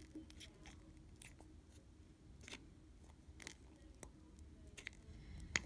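Plastic bottle of puffy paint being squeezed by hand as the thick paint is pushed out, giving faint, scattered clicks and crackles, the sharpest one near the end.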